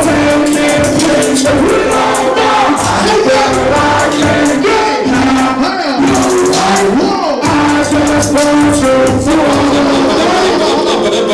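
Hip-hop music: a bass-heavy beat with steady hi-hats under a sliding, pitch-gliding melody.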